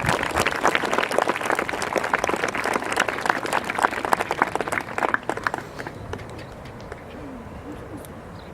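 Crowd applauding, the clapping thinning out and dying away about five or six seconds in.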